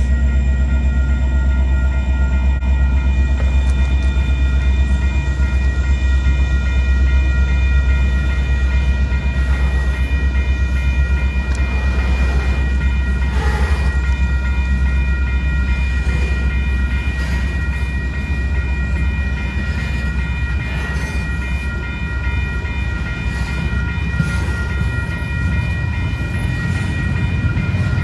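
Loaded freight train of hopper cars rolling past at a grade crossing, with a steady low rumble and scattered clicks of wheels over the rail joints. Over it, the crossing's electronic warning bell rings continuously.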